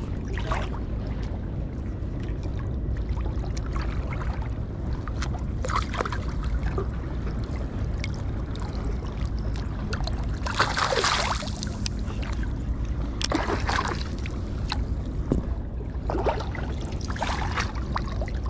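Water splashing and sloshing in short, irregular bursts as a landing net holding a freshly caught flounder is worked at the surface. The loudest splash comes about ten seconds in, over a steady low rumble.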